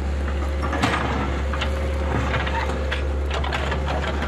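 Gloved hands scraping and clearing soil and stones, with scattered small crunches and clicks, over a steady low hum.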